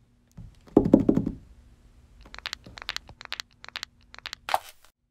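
A cluster of dull knocks about a second in, followed by a quick run of sharp clicks and ticks, and a short scraping burst near the end.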